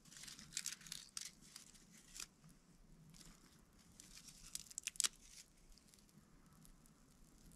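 Dry tinder being torn and crumpled by hand: short crisp rips and rustles, with the sharpest ones about five seconds in.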